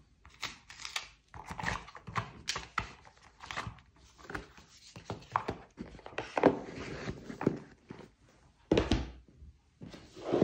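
Playing cards and cardboard pieces being handled and packed back into a card-game box: light clicks, rustling and small knocks on the table, with a louder thump near the end.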